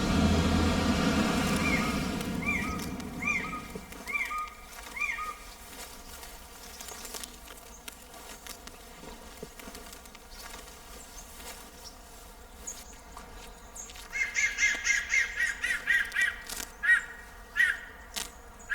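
Wild songbird calls: a series of short rising-and-falling chirps in the first few seconds, then a faster run of chirps near the end, over a faint steady background drone. A low rumble fades out over the first few seconds.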